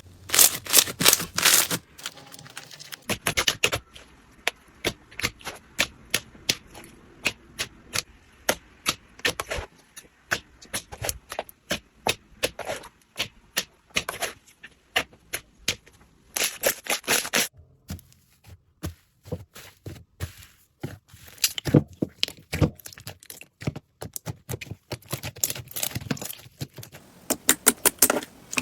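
Slime being worked by hand, giving a long run of crisp clicks and crackles that come in bursts, with a brief pause about two-thirds of the way through.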